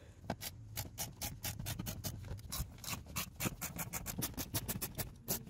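Hand ratchet with a T20 Torx bit clicking in a fast, even run, about eight clicks a second, as it backs out a kick-panel screw.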